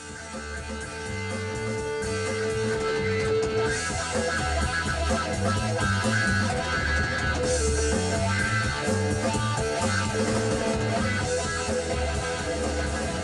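Guitar-led rock music, fading up over the first few seconds and then playing steadily.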